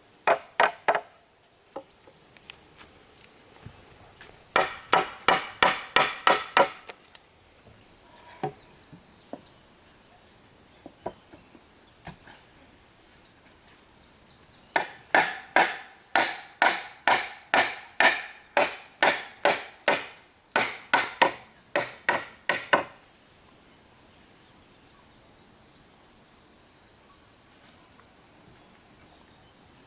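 Runs of quick hammer blows on wood, about three a second, with pauses between them: a short burst at the start, a longer one about five seconds in, and the longest from about fifteen to twenty-three seconds. A steady high buzz of insects runs underneath.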